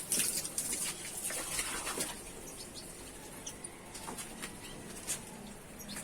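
Small cage birds in an aviary: wing flutters and scattered short chirps, busier in the first couple of seconds.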